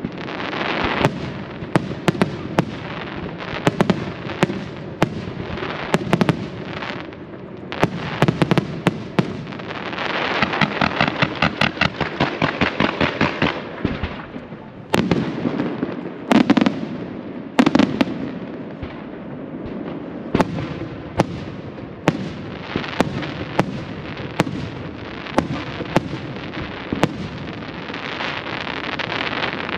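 Aerial firework shells bursting in quick succession: sharp bangs over a continuous crackle. About ten seconds in, a rapid run of reports lasts a few seconds, and the loudest single bangs come a little past halfway.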